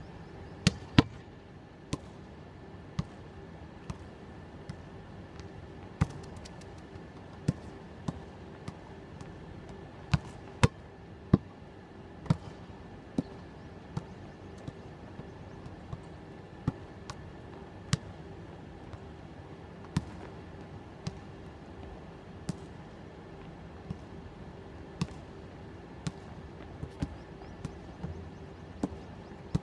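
Football kicked repeatedly against a wall: sharp, separate thuds of the ball striking the wall and the foot, roughly one a second, some in quick pairs.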